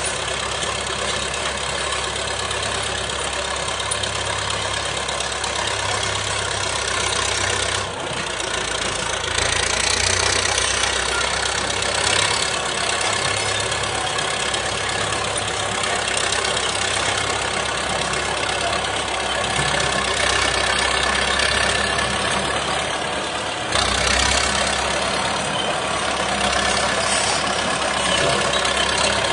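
Caterpillar D7 steel-tracked crawler's diesel engine running steadily as it crawls along towing a sheepsfoot roller, with the clatter of its steel tracks. The sound grows louder in steps, about eight seconds in and again near the end.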